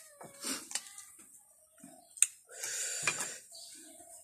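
One crisp snap from a hard unripe green mango being cut into or bitten, about two seconds in, with small ticks of knife and fruit around it, followed by a short noisy rush.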